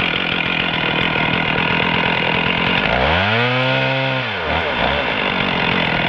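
Stihl 460 Magnum two-stroke chainsaw running steadily. About three seconds in it is throttled up, its pitch rising, then drops back down a second or two later.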